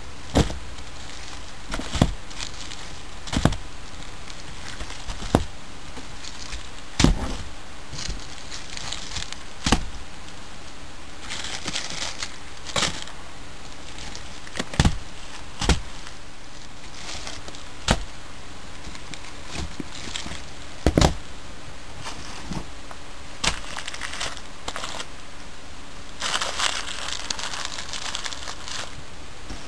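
Handling of packaged fireworks: sharp clicks and knocks every second or two, with two stretches of plastic wrapping crinkling.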